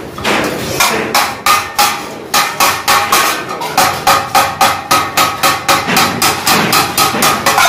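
Rapid, even hammering on metal, about five strikes a second, with a metallic ring that comes in behind the strikes about halfway through.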